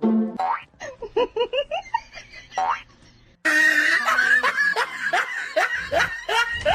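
Laughter in a quick run of short rising bursts. After a brief gap a little past three seconds in, more laughter follows in bursts about every half second over a noisy background.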